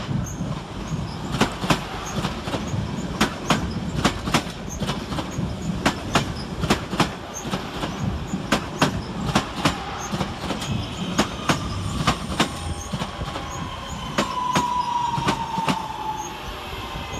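Two coupled Class 323 electric multiple units running through the station, wheels clicking over rail joints. Over the second half a whine slowly falls in pitch as the train slows.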